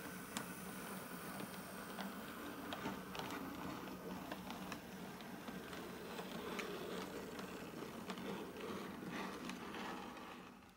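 Model railway train running, with the locomotive's motor whirring steadily and the wheels of the shunter and wagons clicking irregularly over rail joints and pointwork. The sound cuts off near the end.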